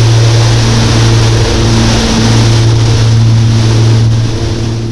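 Hail drumming hard against a Cessna 414's windscreen in flight, a dense, loud rattle over the steady drone of the twin piston engines. It fades out near the end.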